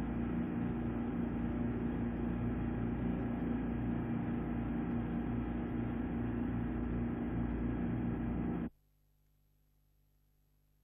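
Motor survey launch running at speed: a steady engine drone over the rush of water along the hull, which cuts off suddenly near the end.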